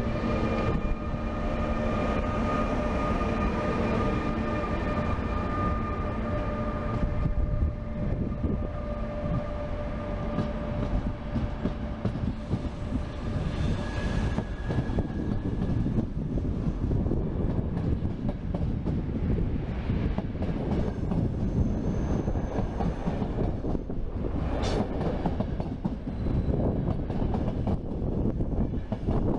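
Siemens Taurus electric locomotive moving past with a steady electric whine of several tones for the first few seconds, then its train of passenger coaches rolling by with a continuous rumble and clatter of wheels on the rails.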